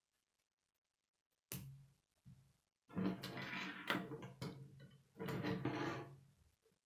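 Plastic K'nex pieces clicking and rattling as the model is handled and slid across a wooden table, in four bursts with a few sharp clicks.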